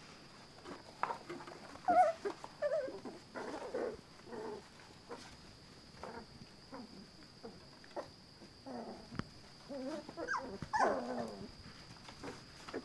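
Four-week-old puppies yipping and whimpering in short squeaky calls while they tussle, with scuffling in wood-shavings bedding; the loudest yelps come about two seconds in and again near the end.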